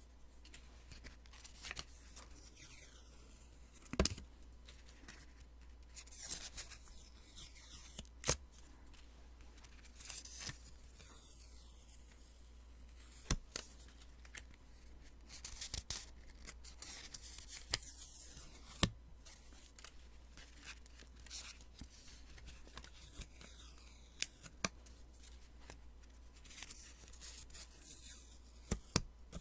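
Post-it sticky notes being peeled off, again and again at irregular intervals. Each peel is a short papery rip, and some end in a sharp snap.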